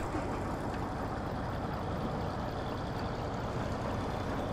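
Timber crane machine's engine running steadily while its hydraulic crane swings a grapple load of logs.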